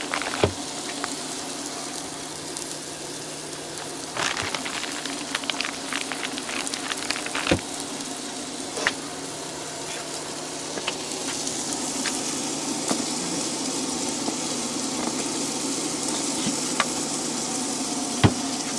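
Eggs frying in a skillet with bacon grease: a steady sizzle that grows louder and brighter about eleven seconds in. A few sharp clicks are heard, about half a second in, around seven seconds in and near the end.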